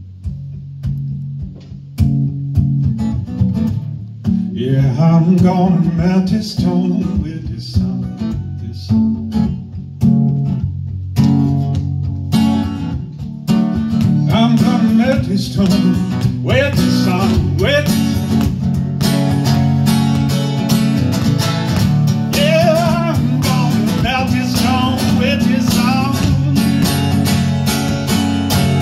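Acoustic guitar played live with a man's singing voice over it; the playing starts sparse, with single struck chords, and settles into steady strumming about halfway through.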